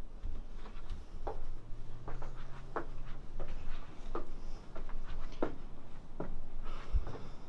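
Footsteps on wooden planks and stairs, a step about every three-quarters of a second.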